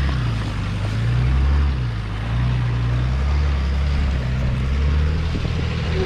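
Four-wheel-drive diesel engine running under light, varying throttle on a rough off-road track: a low drone that swells and eases several times.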